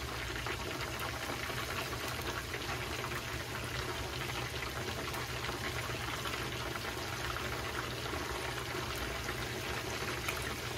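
Chicken karaage pieces deep-frying in a shallow pan of hot oil: a steady sizzle with fine crackling.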